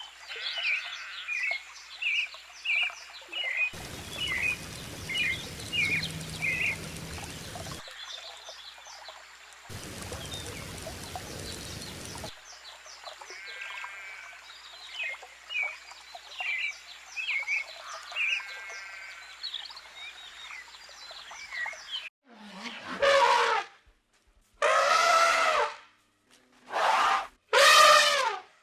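Small songbird chirping: short, high chirps repeated about two a second over a faint background hiss, with two stretches of rushing noise. Near the end this gives way to four loud drawn-out animal calls, each about a second long.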